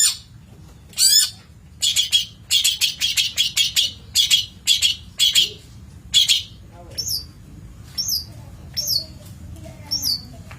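Long-tailed shrike (cendet) singing: harsh, rasping notes in quick bursts, then from about seven seconds in a string of short, high, sharply falling whistles roughly once a second.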